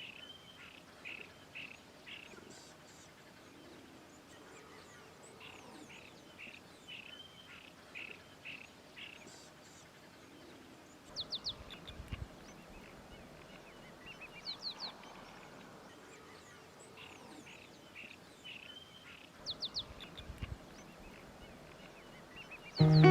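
Wild birds calling at a riverside: series of short repeated notes, with three short bursts of quicker, higher chirps in the second half.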